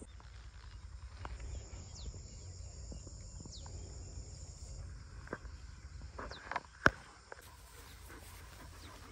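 Outdoor field ambience: a low rumble of wind with a few faint high bird chirps and scattered small ticks, and one sharp click about seven seconds in.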